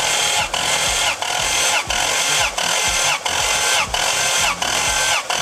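Starter motor cranking a Lexus IS300's six-cylinder petrol engine with its spark plugs out, a steady whirring with a regular pulsing rhythm, during a compression test as the gauge pressure builds on cylinder 5.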